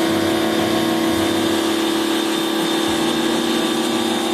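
A small motor running steadily at one constant pitch, with a strong hum and many overtones.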